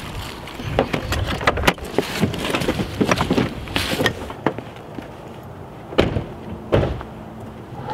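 Car doors being opened and shut as people climb out of a sedan, with handle clicks, clothing rustle and knocks; two sharp door slams near the end, the first the loudest.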